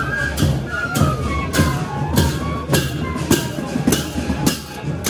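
Newari procession band playing live: several bamboo transverse flutes carry a wavering melody over a steady beat of stick-struck drums and cymbals, a little under two strokes a second.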